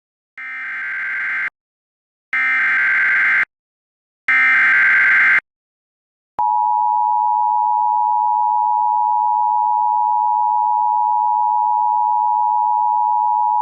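Emergency Alert System header: three one-second bursts of SAME digital data tones, then the EAS two-tone attention signal, a steady dual tone near 1 kHz starting about six seconds in. Together they announce a National Weather Service severe thunderstorm warning.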